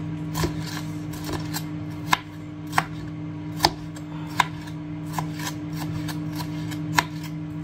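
Kitchen knife knocking on a cutting board while diced red pepper is handled, about eight sharp knocks at an uneven pace, over a steady low hum.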